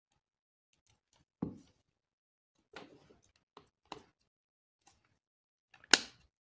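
Samsung Galaxy A20's plastic intermediate housing being handled and pressed onto the phone: a dull knock, then several small scattered clicks, and one sharp snap near the end as a retaining clip catches.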